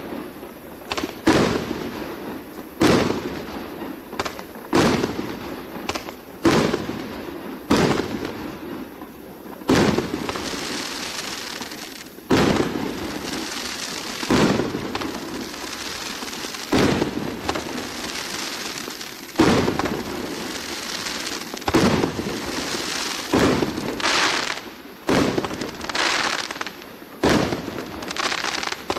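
A 1.2-inch 36-shot firework cake firing: about twenty sharp shots, one every one to two seconds, each launch and break fading quickly. A steady fizzing hiss fills the gaps between shots through the middle of the sequence.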